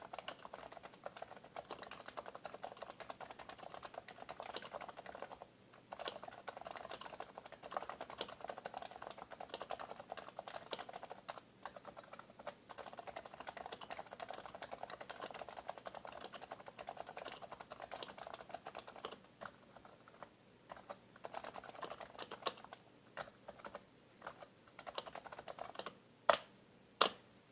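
Fast, steady typing on a Happy Hacking Keyboard Professional BT with Topre capacitive switches, the keystrokes broken by a few short pauses. It thins to scattered single keystrokes and ends with two loud, sharp clacks.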